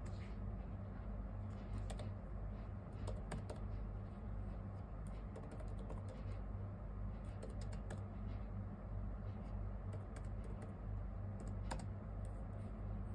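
Scattered light clicks and taps, irregular and sometimes in quick runs, over a steady low hum.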